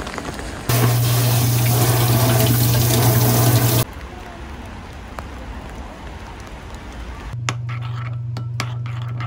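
Rain falling: a loud steady hiss starts about a second in and cuts off abruptly after about three seconds, giving way to softer rain. Near the end come light clicks of a spoon against a bowl.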